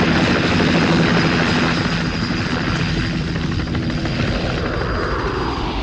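Helicopter rotor and turbine running steadily while it hovers, with a fast rotor chop and a thin high whine. Over the second half a whine falls steadily in pitch and the sound eases a little.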